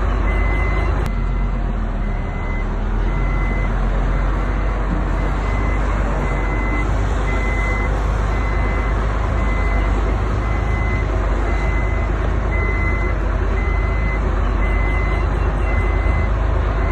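Reverse warning alarm on a heavy construction vehicle beeping steadily, a little more than once a second, over its diesel engine running: the machine is backing up.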